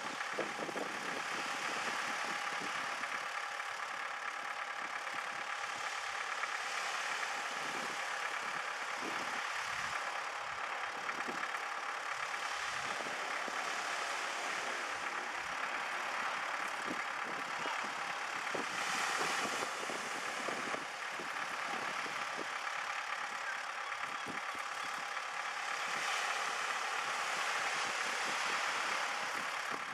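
Tractor engine idling steadily, a constant hum over a steady hiss.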